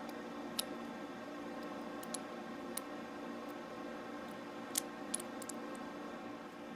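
A few light, sharp clicks at irregular moments over a steady low hum.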